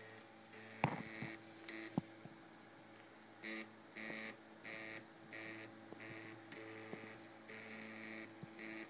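Printrbot Simple 3D printer's stepper motors humming steadily while printing, with a sharp click about a second in and another at two seconds. In the second half, short bursts of higher whine repeat about every two-thirds of a second as the print head moves back and forth laying down a layer.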